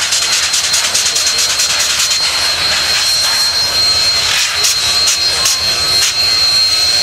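Steady loud hiss of steam from Union Pacific 844, a 4-8-4 steam locomotive, with a thin high tone held through it and a few sharp clicks about halfway through.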